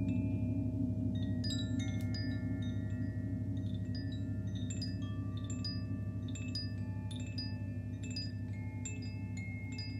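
Large gongs sounding as a deep, wavering drone, with bright chimes struck over it, roughly two ringing strikes a second.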